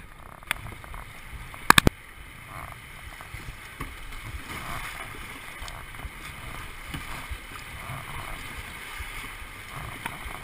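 River rapids rushing and splashing around a kayak as it is paddled into the whitewater, the water noise growing slightly louder toward the end. A sharp knock comes about half a second in, and three quick, loud knocks follow just before two seconds in.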